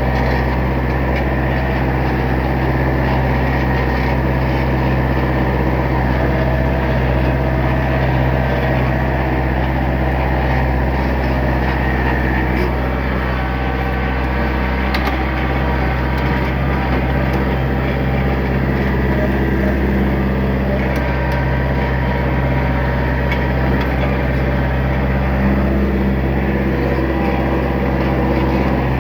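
Tractor engine running loud and steady at about 1700 RPM, in its best torque range, while towing a heavy oak log on a chain.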